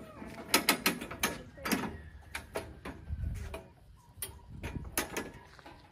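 Hoof trimmers snipping a goat's overgrown hooves: a string of sharp, irregular clicks, thickest in the first two seconds and again near the end. The hooves have grown long because the goats have no rocks to wear them down.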